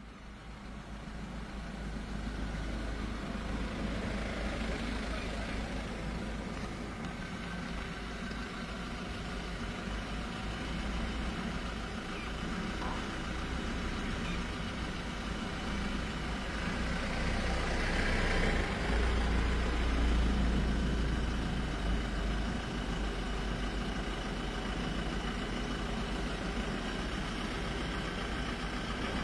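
An engine idling with a steady low rumble, fading in over the first couple of seconds, over a faint even background hiss.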